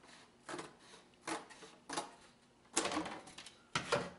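Scissors snipping through a thin cardboard template: a run of separate crisp cuts, about one a second.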